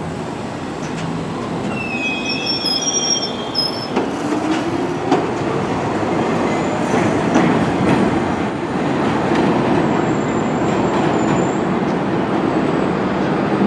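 Kawasaki R62 subway train pulling out and running away on elevated track. Its wheels squeal in high tones a couple of seconds in and again faintly later on, and a low motor whine rises in pitch about four seconds in, over a steady rumble and clickety-clack of wheels on the rails.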